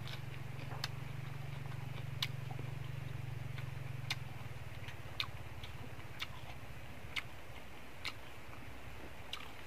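Open-mouthed chewing of crispy fried fish, with a sharp wet smack or crunch about once a second, over a steady low hum that fades after about four seconds.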